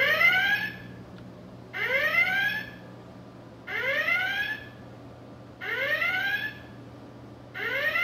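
Star Trek original-series red alert klaxon sound effect played from the model's built-in sound board. It is a short rising whoop that repeats about every two seconds.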